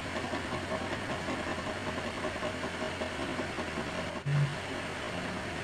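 Steady background hum and hiss of room noise, with a brief low tone about four seconds in.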